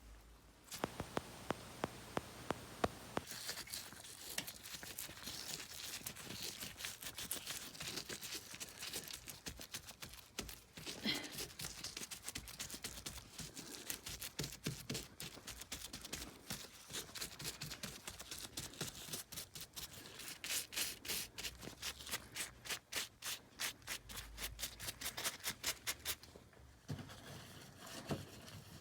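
A hand tool scraping and rubbing repeatedly against a plaster wall. The strokes come faster and more regularly in the second half.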